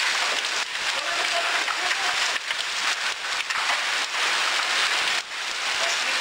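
Heavy rain mixed with hail pelting pavement and nearby vehicles: a dense, steady patter of many small, sharp impacts.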